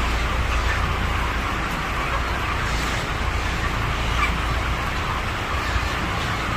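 A large flock of five-week-old broiler chickens chattering and cheeping together in a constant mass of overlapping calls, over a steady low hum.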